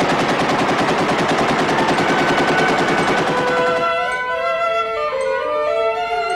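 Rapid, sustained machine-gun fire, which cuts off about four seconds in. Bowed strings, a cello among them, then play long held notes that step from pitch to pitch.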